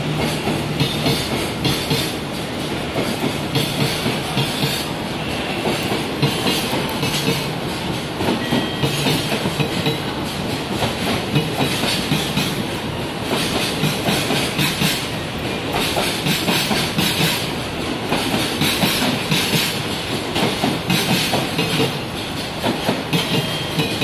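Container freight train passing, its wagons' wheels clattering over the rail joints in a rapid, continuous clickety-clack over a steady rumble.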